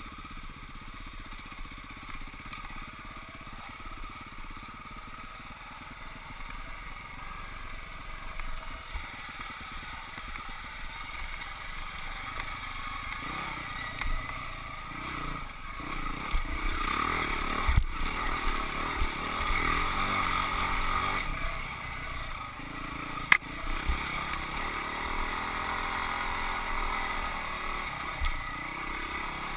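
Husqvarna 449 dirt bike's single-cylinder engine running under a rider, its revs rising and falling, louder from about halfway through, with two sharp knocks.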